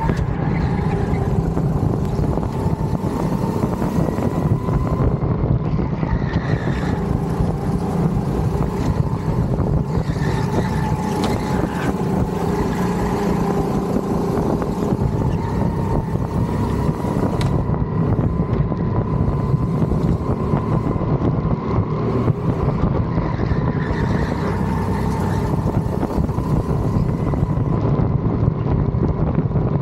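Go-kart engine running hard through a lap, its pitch rising and falling a little through the corners.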